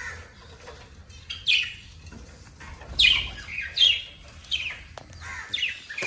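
Budgerigars chirping: a string of short, sharp calls that each sweep down in pitch, about one a second, the loudest from about halfway through.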